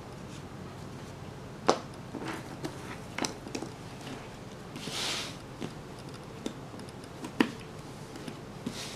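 Cardboard jigsaw puzzle pieces handled and set down in a cardboard puzzle tray on a wooden table: scattered light taps and clicks, with a sharper knock about two seconds in and another about seven seconds in, and a brief rustle about five seconds in.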